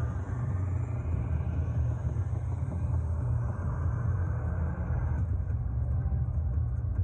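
Slot machine bonus wheel spin effect from the machine's speakers: a steady low rumble with a higher spinning sound on top that drops away about five seconds in as the wheel comes to rest.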